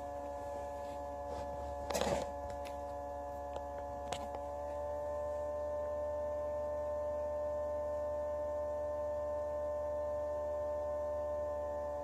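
Small egg incubator's fan motor running with a steady electrical hum, growing slightly louder about halfway through; a sharp knock about two seconds in and a fainter tick a couple of seconds later.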